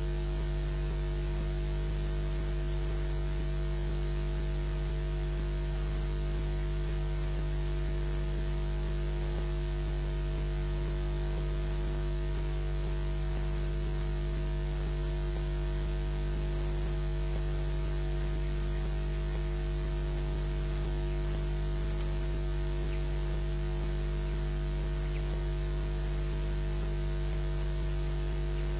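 Steady low electrical hum with a constant static hiss, from the nest camera's audio feed.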